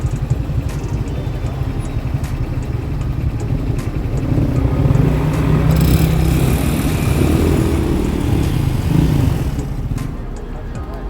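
Small motor vehicle engine running with a fast low throb, growing louder from about four seconds in as it passes close, then fading near the end.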